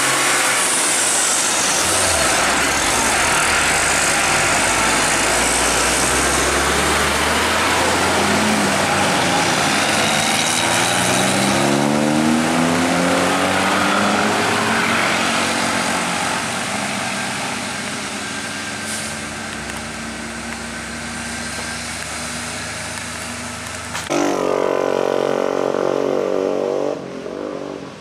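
Isuzu Giga twin-steer truck's diesel engine running under load on a steep climb, its pitch rising as it revs up partway through. Near the end the sound changes suddenly to a different, higher engine note for a few seconds.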